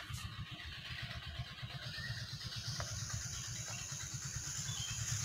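Low, uneven wind rumble buffeting the phone's microphone, under a steady high insect drone that grows stronger about halfway through.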